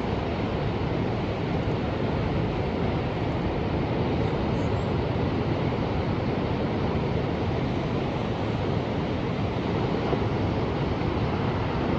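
Ocean surf: a steady, deep wash of waves with only gentle swells in loudness.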